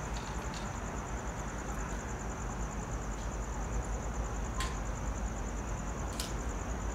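Night trackside ambience: a steady high-pitched pulsing insect chorus over a low rumble from a distant approaching train, with two sharp clicks about four and a half and six seconds in.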